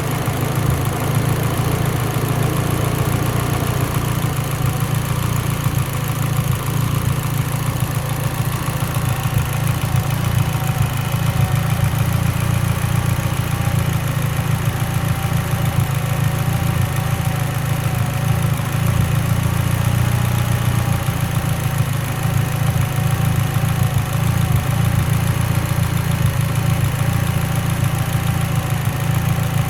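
Mitsubishi Lancer Evolution X's turbocharged 2.0-litre four-cylinder engine idling with a misfire, which the owner puts down to a lean mixture at idle.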